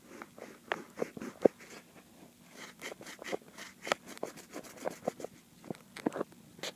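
Drawing on an iPad touchscreen while coloring in: a string of irregular short taps and scratchy strokes on the glass, several a second.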